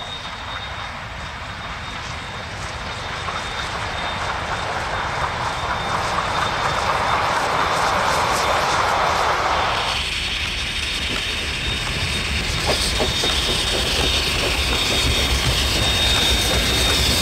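Ja-class steam locomotive hauling a heritage excursion train past at a distance, its sound swelling as it nears. About ten seconds in, the sound switches to a close lineside pass of the steam locomotive and a DA-class diesel-electric coupled behind it, with wheels clicking over rail joints and a deep engine rumble.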